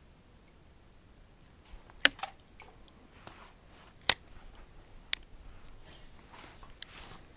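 A spinning rod and reel being handled and cast: a few sharp clicks, the loudest about four seconds in, with softer rustling in between.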